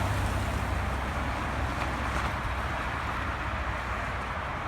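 The 2016 Honda Accord's engine idling, a steady low hum that weakens about a second in, under an even rushing noise of wind on the microphone.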